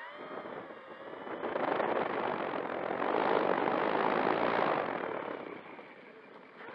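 Brushless electric motor and propeller of an E-flite Air Tractor 1.5m RC plane taxiing, heard from an onboard camera. The motor whine rises in pitch as the throttle comes up. About a second and a half in, loud propeller wash rushes over the microphone for around four seconds, then it eases back to the motor whine near the end.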